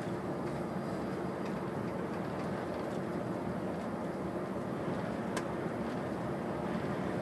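Engine and tyre noise inside the cab of a heavy vehicle cruising at highway speed: a steady low hum. A single brief click about five seconds in.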